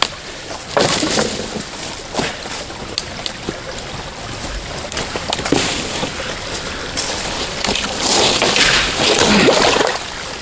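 Water sloshing and splashing, with scattered knocks, louder for a couple of seconds near the end.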